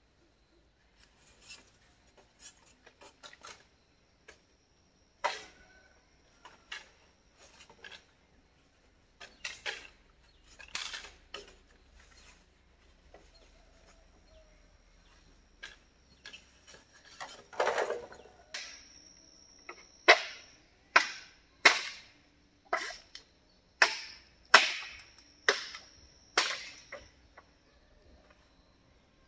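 Chopping wood with a blade: scattered light knocks at first, then a run of sharp, loud chops about one a second through the last third.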